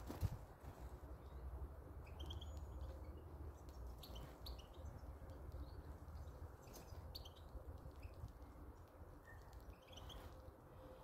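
European goldfinches giving short, high chirps, a few at a time, over a faint low rumble. A single sharp knock comes just after the start.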